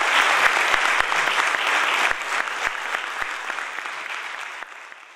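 Audience applauding, a dense patter of clapping that dies away over the last few seconds.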